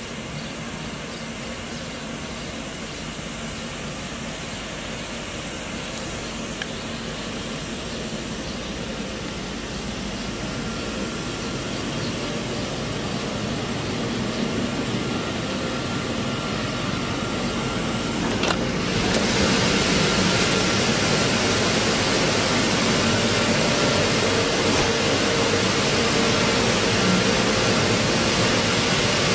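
Machinery in a flour mill plant running: a steady whooshing hum with a few faint held tones. It grows gradually louder and then steps up suddenly about two-thirds of the way through.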